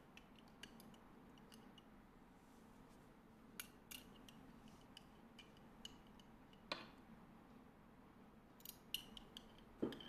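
Faint, scattered clinks of a metal spoon as pickled vegetables are scooped from a glass jar into a steel ring mould, each with a brief ring. The loudest come about seven seconds in and near the end; between them it is near silence.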